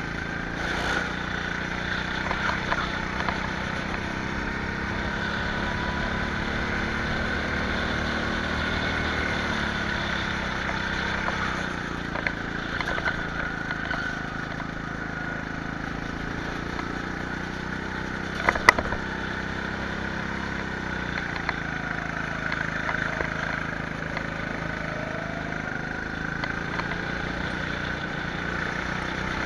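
Go-kart engine running, its pitch rising and falling as it speeds up and slows, with steady noise underneath. A single sharp knock about two-thirds of the way through.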